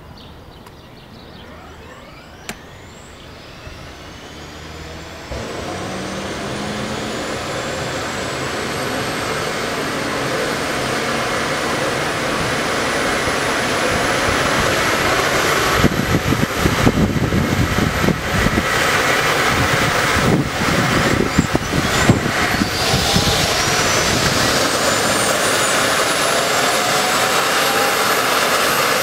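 Eurocopter EC135 helicopter's twin turbine engines starting up: a whine that climbs steadily in pitch and grows louder as the main rotor begins to turn and speeds up. Irregular low rumbling bursts come and go between about 16 and 22 seconds in.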